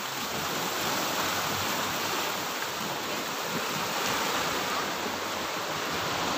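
Small waves breaking and washing onto a pebbly shore: a steady rushing noise.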